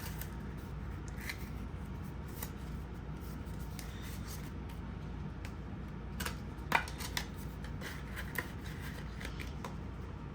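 Paper banknotes and envelopes being handled: soft rustling with scattered light clicks and taps, the sharpest about seven seconds in.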